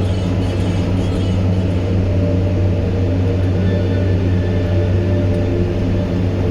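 Caterpillar 420 backhoe loader's diesel engine running steadily, a constant low drone.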